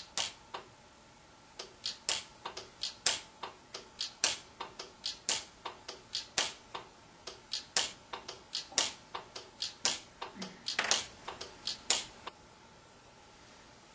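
Orion pulse-arc welder firing on thin aluminium sheet: a rapid, uneven string of sharp snaps, one for each weld pulse, about three a second, stopping about twelve seconds in.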